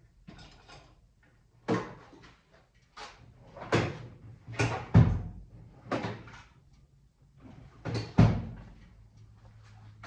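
Tool drawers and cabinet doors being opened and shut with tools clattering, a run of sharp knocks and bangs while rummaging for a long tool, the loudest about five and eight seconds in.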